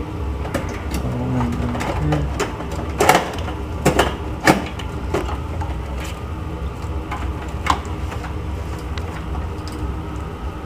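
Power supply cables and their plastic connectors being pulled and pushed through a steel PC case: scattered clicks, ticks and knocks, the loudest cluster about three to four and a half seconds in, with one more near eight seconds.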